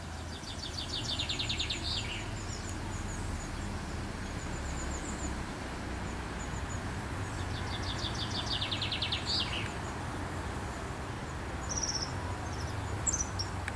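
A songbird sings a fast, high trill twice, about a second in and again around eight seconds, with thin high chirps between, over a low steady rumble.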